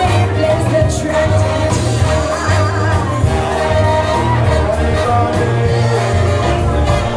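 A live New Orleans-style brass band with trombones and saxophone plays a Mardi Gras carnival song, with several voices singing over the horns and a pulsing bass line.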